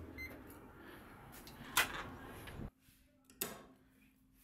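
A short electronic beep, then the sharp click of a door latch about two seconds in. After the background hush suddenly drops, a second sharp click comes from an elevator call button being pressed.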